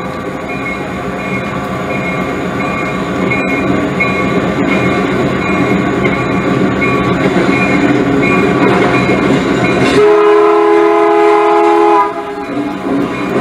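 HO scale model freight train running past with a steady rumble, and a train horn sounding one chord for about two seconds about ten seconds in.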